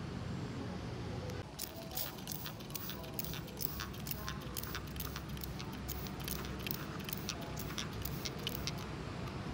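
Irregular light clicks and ticks, a few a second, start about a second and a half in and stop near the end, over a steady low rumble.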